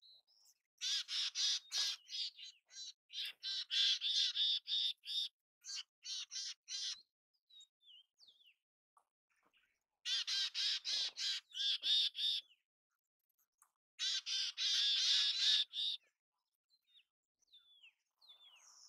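Mountain chickadee giving hoarse chick-a-dee calls: three runs of rapid, harsh, buzzy notes, the first and longest lasting about six seconds. Faint thin, high notes come in the gaps between runs.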